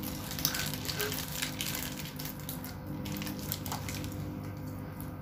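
Close-up chewing of a crispy fried chicken burger: many small, irregular crunches.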